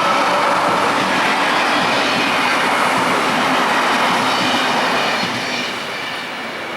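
Electric commuter train passing close by, its wheels running over the rails. The noise holds steady, then starts to fade about five seconds in as the train moves away.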